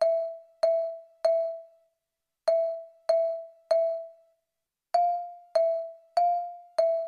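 Background music: a single bell-like keyboard note struck over and over, about one to two strikes a second. Each strike rings out and fades, with two brief pauses.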